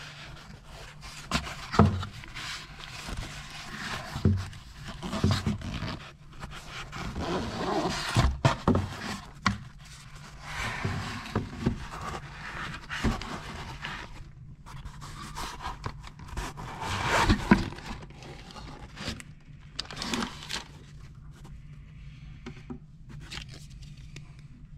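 Hands handling a fabric-covered headset carry case in a cardboard box: irregular scraping and rubbing of cloth against cardboard, with a few sharp knocks.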